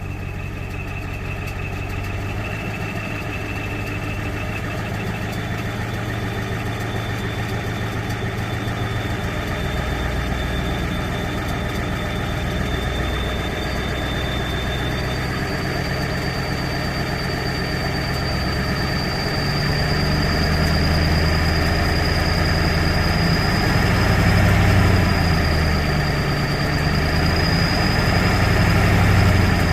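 1991 Ford F250's 7.3 L IDI diesel engine running, with a thin, steady high whistle from the exhaust that jumps higher in pitch twice. The engine grows somewhat louder about two-thirds of the way through.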